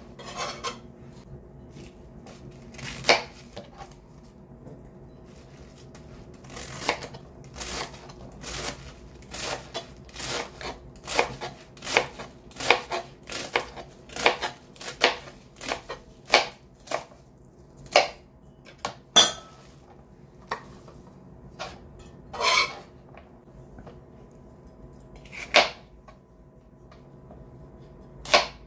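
Chef's knife chopping vegetables (Brussels sprouts, napa cabbage, celery) on a plastic cutting board: sharp, irregular knocks of the blade striking the board. They come in a quick run through the middle and thin out to single cuts near the end.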